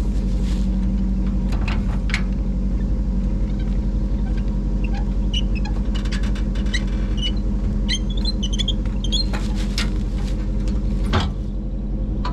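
An engine idling steadily under the whole stretch. Over it come scattered small clicks and high squeaks in the middle, and one sharper knock near the end.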